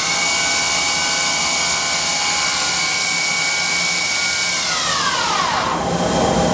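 Emco Maier ET-425 CNC turning center's spindles running at about 4,500 rpm with a steady whine of several tones. About four and a half seconds in, the whine falls in pitch as the spindles spin down, leaving a lower steady machine hum.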